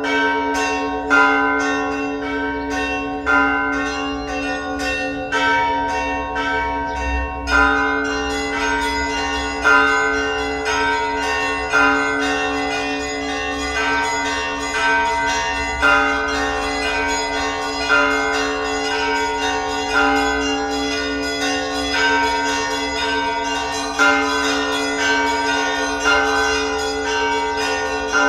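Church bells ringing continuously: a heavy stroke about every two seconds over a steady low hum, with smaller bells chiming rapidly in between.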